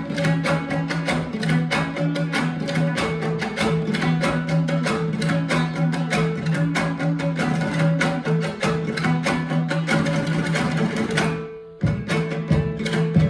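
Background music with string instruments and a steady beat. It dips out briefly near the end, then starts again.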